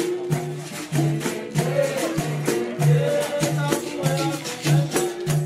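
Capoeira roda music: percussion with rattling shakers and a tambourine-like jingle over a steady low beat about twice a second.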